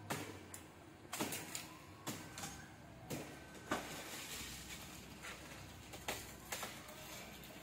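Sharp chopping strikes at irregular intervals, roughly one a second, from someone high in a buri palm cutting away fronds with a blade.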